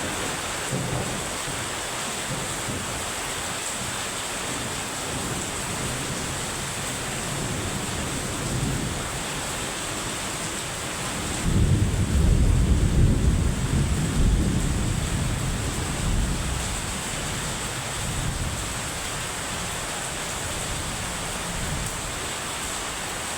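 Heavy rain falling steadily, with a low rumble of thunder rolling in about halfway through and dying away over several seconds.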